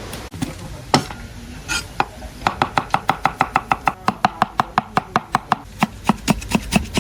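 Kitchen knife chopping food on a cutting board: two separate strokes, then a fast, even run of about five chops a second that slows near the end.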